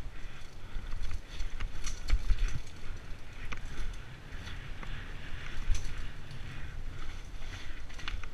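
Mountain bike riding down a dirt singletrack: tyres rolling over packed dirt, with frequent clicks and rattles from the bike over bumps and roots and a low rumble throughout.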